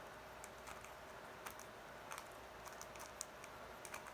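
Plastic Rubik's Cube layers being turned rapidly with one hand: faint, irregular clicks and clacks.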